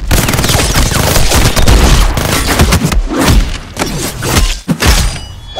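Rapid pistol gunfire sound effects, a dense fusillade of shots for about three seconds, followed by several separate heavy hits.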